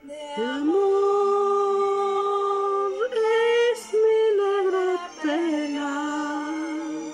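A voice singing slow, long-held notes with little or no accompaniment. It slides up into the first note, then steps between three or four pitches, each held a second or more, with a slight waver.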